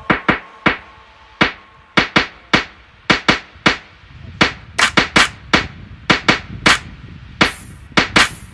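Background music in a drum-only passage: sharp, dry percussion hits in a quick rhythm, with a low bass rumble coming in about halfway through.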